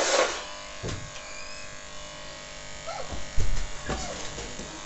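Electric hair clippers buzzing steadily as they shave close around the ear, with a brief louder rush at the start. A few low thumps come about three and a half seconds in.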